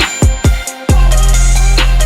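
Background hip-hop style music with a heavy bass and kick drum; the bass drops out for a moment about half a second in, leaving a few drum hits, then comes back.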